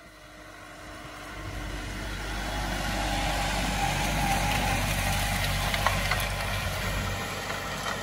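Massey Ferguson 3710 tractor engine running steadily under load while pulling a cultivator through the soil, growing louder over the first three seconds as it comes closer, then holding.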